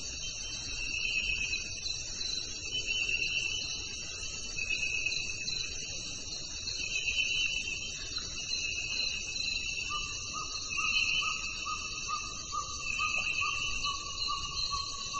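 Chorus of insects trilling. Several steady high-pitched trills overlap, one swelling and fading every couple of seconds, and about two thirds of the way in a lower call joins, pulsing about three times a second.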